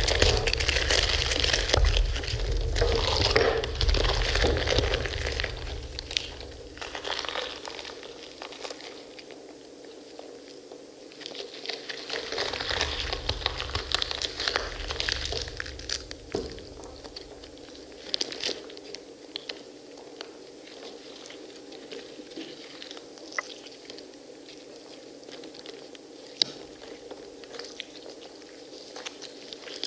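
Hands squeezing and tearing apart pomegranates close to the microphone: wet crunching and crackling of the rind and seeds, busiest in the first six seconds and quieter after. A low rumble comes and goes underneath, and a single sharp click sounds near the end.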